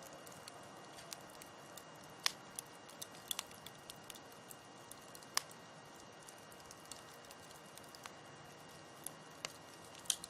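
Campfire burning with a low steady hiss and irregular sharp crackles and pops from the burning wood, a few of them louder: about two seconds in, about five seconds in and near the end.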